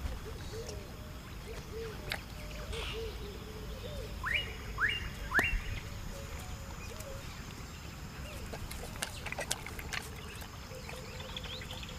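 Wild birds calling: three quick rising whistled notes about four to five seconds in, over fainter repeated short notes and a few sharp clicks.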